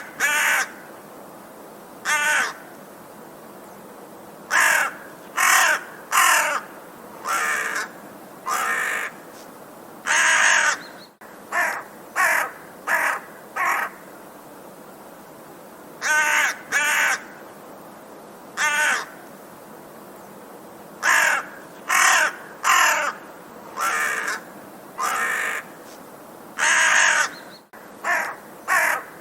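Crow cawing: short harsh caws in runs of one to five, separated by pauses of a second or two, over a faint steady hiss.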